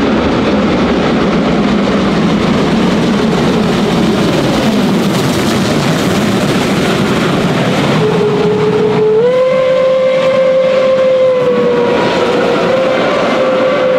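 DB class 01.10 steam locomotive 01 1066 passing at speed with its train: loud exhaust and running gear that drop in pitch as it goes by, then the locomotive's steam whistle sounding one long blast from about eight seconds in, starting lower and stepping up in pitch about a second later.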